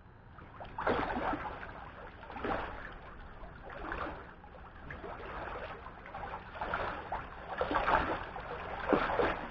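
Pool water splashing and sloshing in repeated surges, about one every second and a half.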